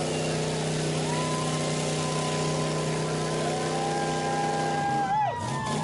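Car engine idling steadily. Near the end the idle drops away and a few wavering high-pitched tones sound.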